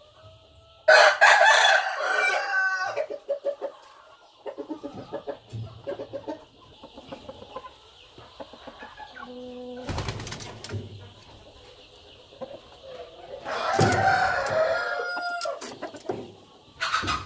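Roosters crowing: a loud crow about a second in and another about two-thirds of the way through, with short clucking calls between them. A sudden sharp noise sounds about ten seconds in.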